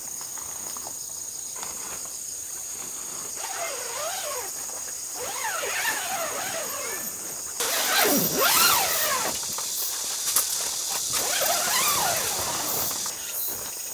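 Zippers on a tent's window panels pulled open in several long runs, each rasp rising and falling in pitch with the speed of the pull, the loudest about eight seconds in, with the fabric rustling.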